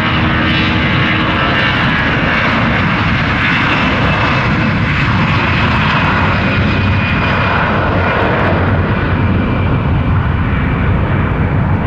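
Jet engines of an Airbus A330-900 airliner (Rolls-Royce Trent 7000 turbofans), loud and steady as the aircraft passes close by.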